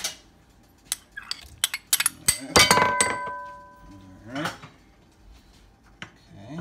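Diced mango being tipped from a bowl into a frying pan: a spoon scrapes and taps against the dishware, with scattered clinks and knocks. About two and a half seconds in comes the loudest clatter, which rings on for about a second.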